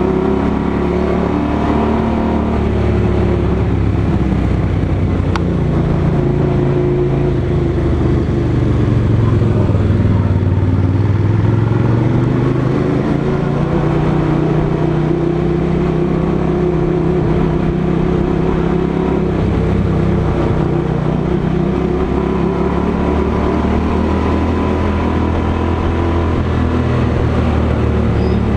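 Motorcycle engine running under way, a steady drone whose pitch rises gently about a third of the way through and then settles back down.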